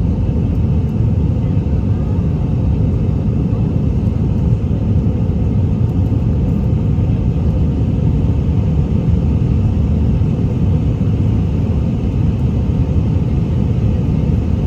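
Cabin noise inside an Airbus A319 airliner: a steady, even low rumble from the aircraft under way, holding level without change.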